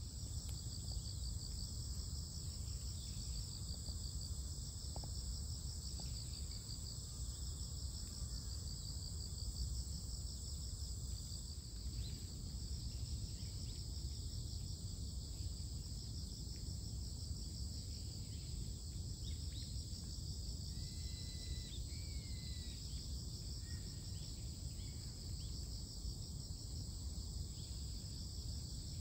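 Chorus of autumn crickets singing steadily in a high, finely pulsing trill, over a low steady rumble. A few short bird chirps come in about two-thirds of the way through.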